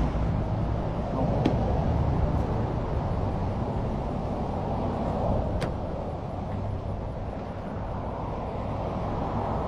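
Steady low rumble of vehicle noise by the road, with a couple of faint clicks.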